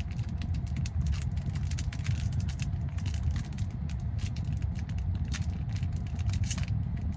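Foil trading-card pack wrapper crinkling and crackling in quick irregular clicks as it is handled and picked at to find the opening, over a steady low rumble.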